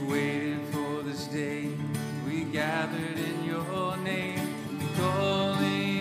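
Two acoustic guitars strumming chords together as the introduction of a slow worship song.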